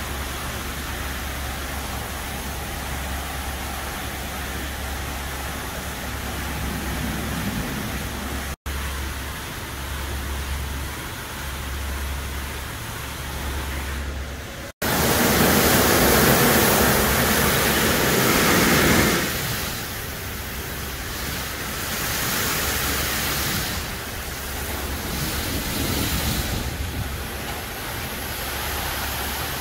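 Brush gantry truck wash working on a semi tractor-trailer: a steady rushing hiss of water spray and wash machinery over a low hum, louder for a few seconds near the middle.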